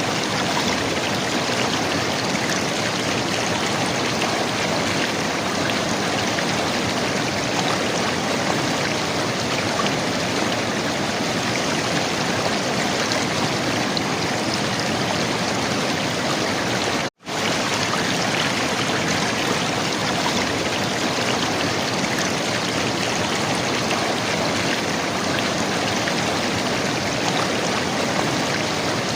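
River water running and gurgling steadily. The sound cuts out for a split second about seventeen seconds in, then carries on unchanged.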